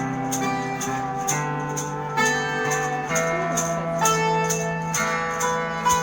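Live band playing an instrumental passage: guitar notes held and changing about once a second over a light percussion beat ticking about twice a second.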